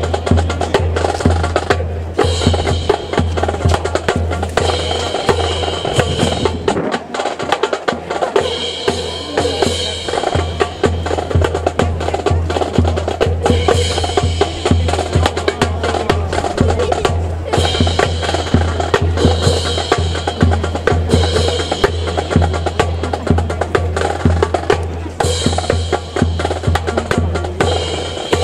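Drum cadence for a rifle drill: a steady, fast bass-drum beat under snare drum rolls that come back about every two seconds. The bass drum drops out briefly about seven seconds in.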